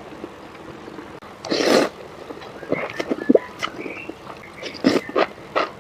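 Close-miked eating of spicy noodles: a short noisy slurp, then a run of wet chewing clicks and mouth smacks.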